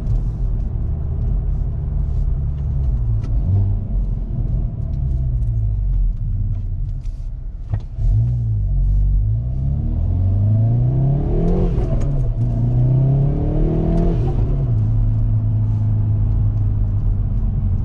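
Hyundai Veloster N's turbocharged 2.0-litre four-cylinder engine being revved while the car stands still: the pitch climbs and falls several times, with a sharper jump about halfway through. It then holds a steady note near the end.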